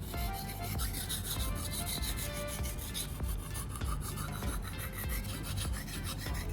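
Steel knife blade being drawn back and forth across a wet whetstone coated in baking-soda slurry: a continuous gritty scraping in repeated strokes.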